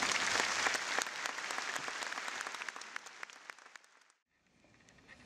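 Audience applauding, many hands clapping, dying away over about four seconds and then cutting out briefly, with a few scattered claps near the end.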